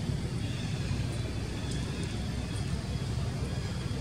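Steady low outdoor rumble, with a faint hiss and a few soft ticks over it.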